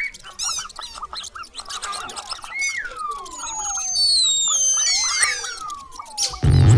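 Squeaky mouse sound effects: quick high chirps and squeaks mixed with longer whistles that slide down or up in pitch, over short clicks. Near the end a loud, low sound cuts in.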